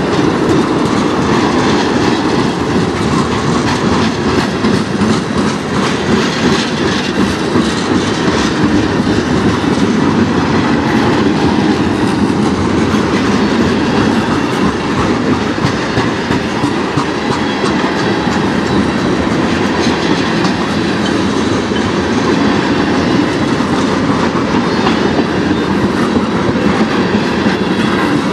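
Freight train tank cars rolling past at a steady speed: a continuous rumble of steel wheels on the rails, with repeated clicking as the wheels cross rail joints.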